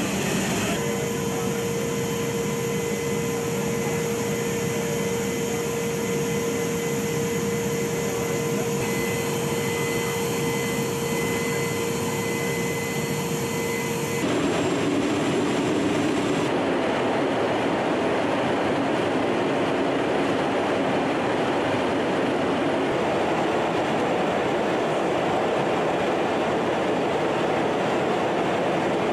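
Steady noise of a C-17 Globemaster III's four turbofan engines and airflow in flight, with a steady hum over it. About halfway through, the sound changes abruptly to a slightly louder, more even noise without the hum.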